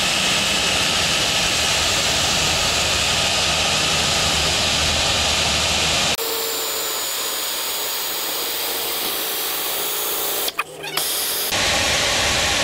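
Drill running steadily as its bit cuts out a blown-out spark plug hole in the aluminum cylinder head of a 5.4-liter two-valve Ford Triton engine, boring it for a thread repair insert. The sound drops lower about six seconds in, stops briefly near the end, then starts again.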